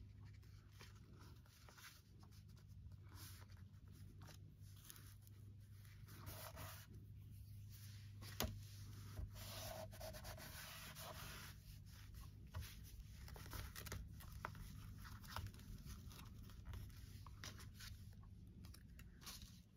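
Faint paper and craft materials being handled on a work surface: scattered rubbing, rustling and light ticks, one sharper tick about eight seconds in, over a low steady hum.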